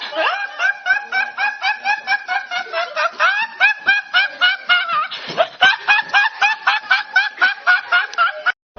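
High-pitched, squeaky laughing sound effect: a fast run of short rising hoots, about four a second, that cuts off suddenly near the end.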